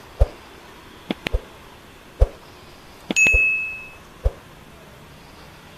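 A single electronic chime: one high ding that rings out and fades within about a second, a little past halfway. Around it come about six sharp knocks with a low thud, irregularly spaced.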